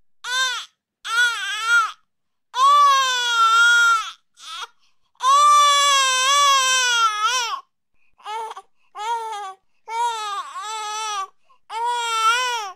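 An infant crying: a run of wailing cries with gaps between them, each rising and falling in pitch, with two long wails about three and six seconds in.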